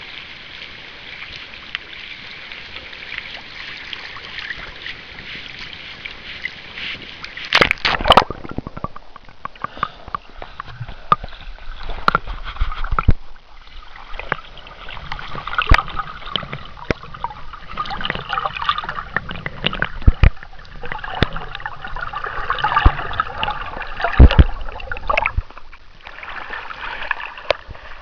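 Lake water sloshing and splashing around a camera held at the surface while a golden retriever swims close by. A loud splash comes about eight seconds in, then uneven gurgling, sloshing and sharp knocks, with more hard splashes near the end.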